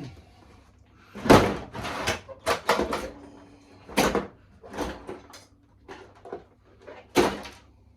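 A run of sharp knocks and clatters from tools and metal parts being handled, rummaged for and set down, loudest about a second in and again near the end.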